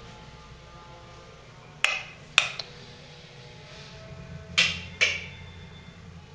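Wall light switches clicking: two sharp clicks about two seconds in, and two more about four and a half seconds in, as the bathroom light comes on.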